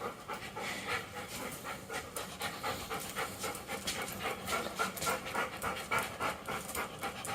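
Dog panting rapidly and steadily, about four breaths a second.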